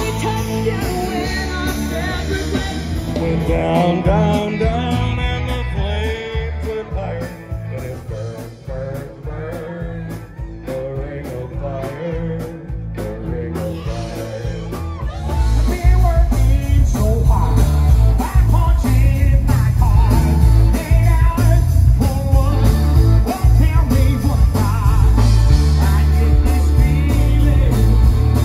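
A rock band playing live with lead vocals over drums, electric guitars and keyboard; first a woman sings lead, then a man. The music jumps to a louder, bass-heavy passage about halfway through.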